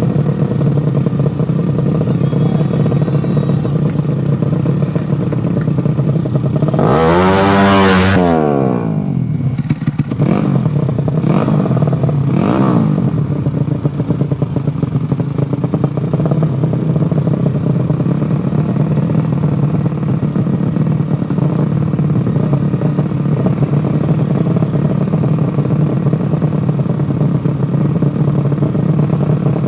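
Small underbone motorcycle engines running steadily. About seven seconds in, one engine rises to a loud high-pitched scream and falls away again. Two fainter rises and falls follow a few seconds later.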